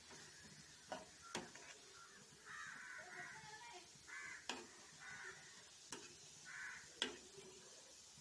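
A spatula knocks and scrapes against the pan a few times as the snack pieces are turned in the simmering seasoning. Crows caw repeatedly in the background.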